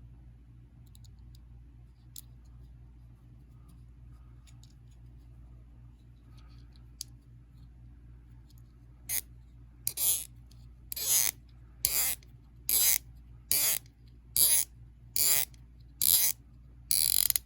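Diecast toy car on freshly swapped wheels, pushed back and forth on a bench: about ten short squeaky rolls at an even pace, starting about halfway through, with one wheel squeaky. A low steady hum lies under it.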